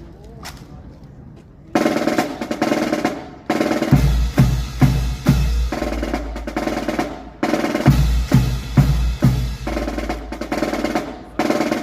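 Drum-heavy music with snare drum rolls and bass drum hits over sustained deep bass and chords, coming in loudly about two seconds in after a few faint clicks.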